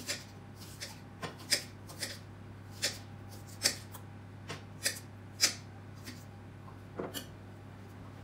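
Knife slicing green onion on a hard cutting board: about a dozen sharp, irregular clicks of the blade striking the board, roughly one every half second, stopping about seven seconds in.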